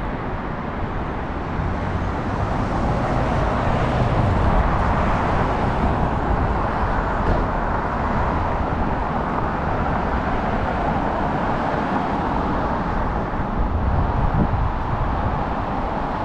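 Steady road traffic on a busy city street, cars driving past. It swells louder about four seconds in and again near the end as vehicles pass close by.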